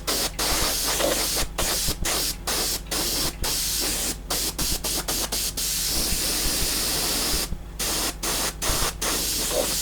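Airbrush spraying compressed air: a steady hiss cut by many brief stops as the trigger is pressed and released.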